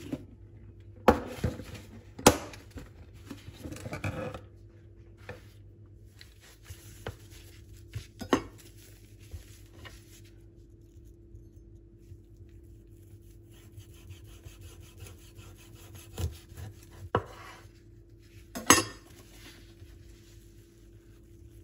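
Knife and plate knocking on a wooden cutting board while a plastic-wrapped sticky rice roll is handled and cut in half: sharp clacks about a second and two seconds in, a few softer knocks and rubbing after, and more clacks near the end, over a steady low hum.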